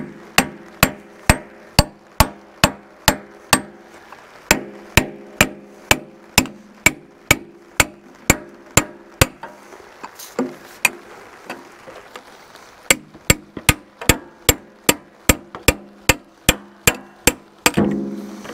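Repeated hammer blows on steel at the stick cylinder end of an excavator boom, about two a second, each one ringing. They come in three runs with short pauses between.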